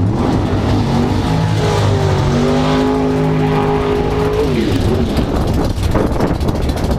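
Drag race car engine pulling hard down the track, its pitch climbing steadily for about three seconds, then dropping sharply about four and a half seconds in, followed by a rough, rumbling engine note.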